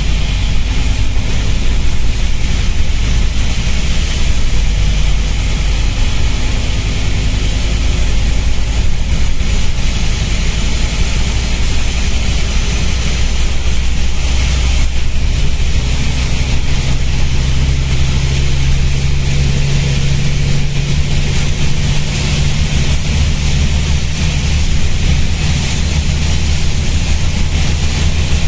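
Loud, constant hiss of an air leak from the compressed-air system of a moving Scania N230UB bus, over the steady drone of its engine. The engine's note changes about halfway through.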